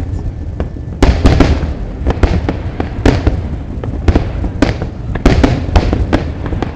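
Fireworks going off in rapid, irregular succession: sharp bangs and crackles over a continuous low rumble, with heavier booms about a second in, around three seconds, and twice in the second half.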